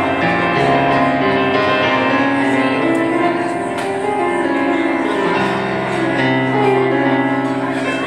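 Solo piano introduction to a song: chords under a melody played on a stage piano, with the bass moving to a new chord about two-thirds of the way through.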